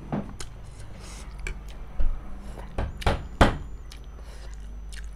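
A few short, sharp knocks and clatters over a low steady hum: one near the start, one about two seconds in, and the two loudest close together a little after three seconds in.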